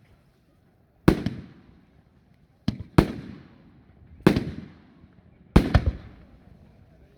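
Fireworks going off: five loud bangs at roughly even spacing, each trailing off in a rolling echo, with a smaller crack just before one of them.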